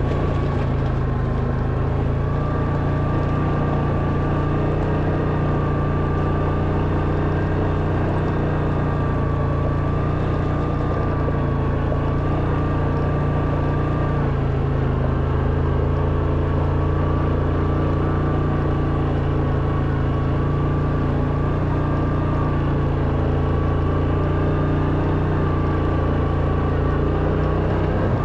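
A steady, unchanging motor drone, low and even, with a constant thin high whine over it.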